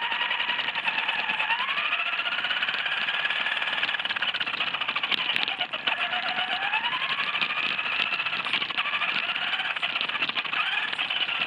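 Radio-controlled car's motor and gears whining, the pitch rising and falling several times with the throttle, over a constant crackle of tyres rolling on gravelly pavement.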